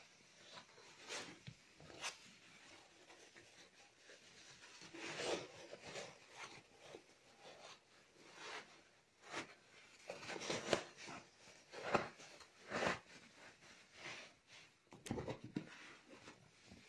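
Rustling and rubbing of a baby stroller's quilted seat padding and nylon cover being handled, in irregular bursts, with a few short clicks.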